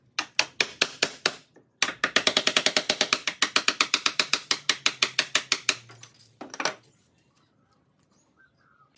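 Hammer striking a wood chisel as it cuts a notch in a timber board: a handful of blows, a brief pause, then a fast even run of about seven light blows a second for some four seconds, and one last blow.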